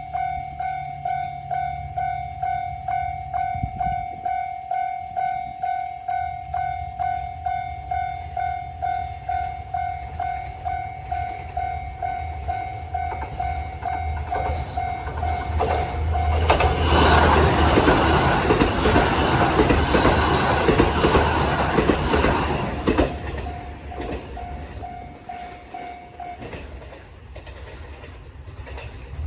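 A Japanese railroad crossing's warning bell rings in a steady repeating ding over a low diesel rumble. Past the middle, a diesel limited-express train passes loudly over the crossing, its wheels clattering on the rails. The bell stops shortly before the end.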